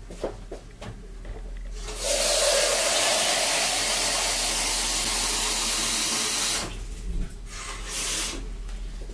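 Water tap running for about four and a half seconds: it comes on suddenly about two seconds in and is shut off, with a few light clicks and knocks before it.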